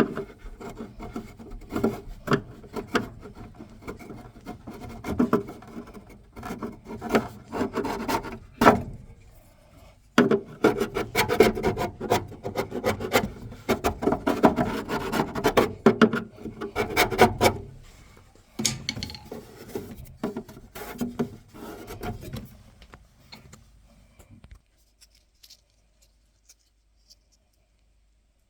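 Irregular rubbing and scraping noises with sharp knocks scattered through them, stopping about 24 seconds in.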